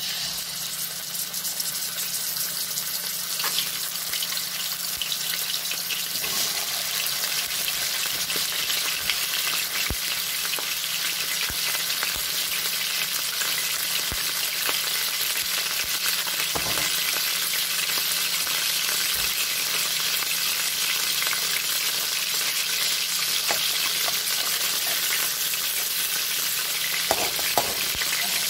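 Raw chicken pieces sizzling in hot olive oil in a wok: a steady frying hiss with scattered small pops, growing louder over the first several seconds as more pieces go in. A few light clicks near the end.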